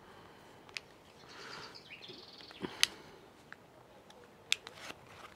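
A small plastic sensor casing being handled and pried open, giving a few sharp separate plastic clicks. A faint high chirping is heard around two seconds in.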